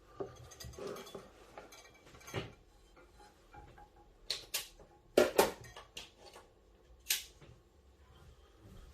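Hard objects being handled on a bench: a few sharp clicks and knocks, coming in pairs around the middle, the loudest pair just past halfway.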